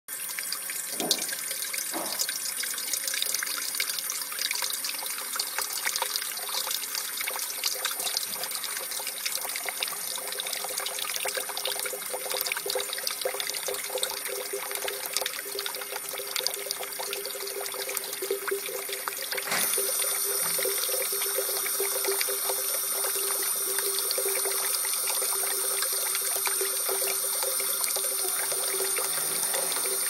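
Water from a stainless steel drinking fountain (bubbler) streaming into its metal bowl, splashing and running down the drain. About twenty seconds in it turns a little louder and steadier.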